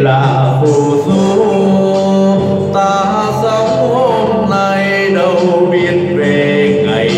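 Karaoke backing music with a man singing over it into a handheld microphone.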